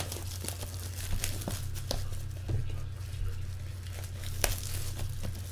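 Plastic shrink-wrap crinkling and tearing in short, irregular crackles as a sealed box of trading cards is unwrapped by hand, over a steady low hum.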